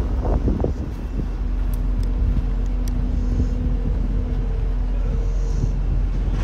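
Steady low outdoor rumble, with a faint steady hum between about one and a half and four and a half seconds in.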